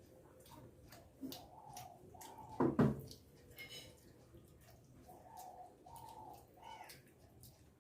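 Pigeons cooing repeatedly, over many small mouth clicks and smacks of someone eating rice and fish curry. A single louder knock comes a little under three seconds in.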